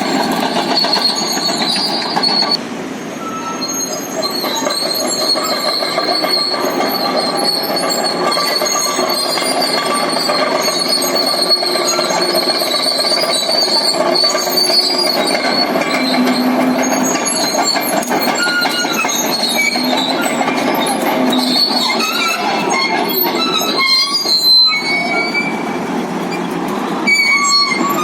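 Caterpillar D8L track dozer on the move: its steel track undercarriage squeals and clanks continuously, with high shifting squeals over the steady diesel engine.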